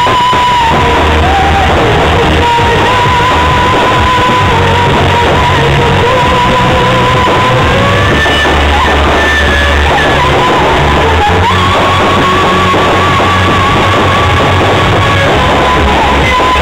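Loud rock music: a wavering lead melody held over a heavy bass line.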